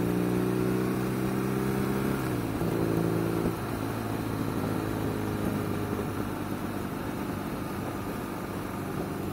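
BMW R nineT's 1170 cc boxer twin running at steady revs under way. About two seconds in the engine note breaks off and briefly returns, then from about three and a half seconds it settles lower and quieter, off the throttle.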